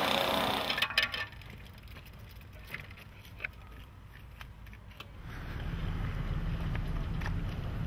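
A Mobylette moped's small two-stroke engine running for about a second, then a few faint metallic clicks and clinks of a wrench working on the moped's V-belt pulley. A low steady rumble sets in about five seconds in.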